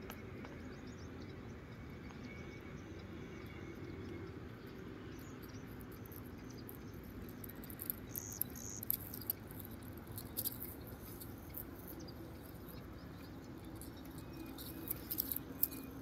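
Outdoor field ambience: a steady low rumble with a faint hum, scattered faint ticks and rustles, and a short double chirp about eight seconds in.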